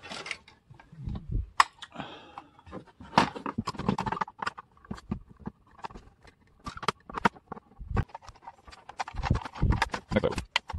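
Small plastic model-truck parts being handled and fitted together: irregular clicks, taps and light rattles, with a few dull knocks on the bench.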